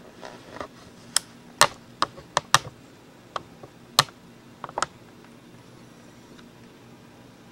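A run of about a dozen sharp, irregular clicks and taps, clustered in the first few seconds and stopping about five seconds in.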